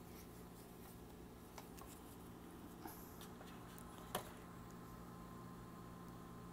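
Quiet room tone with a steady low hum, broken by a few faint clicks and one sharper click about four seconds in.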